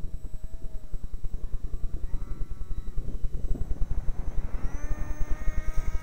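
Strong wind buffeting the microphone, over the electric motor and propeller of a radio-controlled seaplane: the whine rises about two seconds in and drops back, then spins up again to a steady high whine near the end as the plane is throttled up on the snow.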